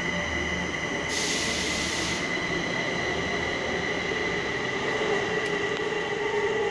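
Three-car Kaohsiung MRT metro train pulling out of an underground station platform, running with a steady high-pitched whine. A burst of hiss comes about a second in and lasts about a second, and a lower tone grows louder near the end as the train leaves.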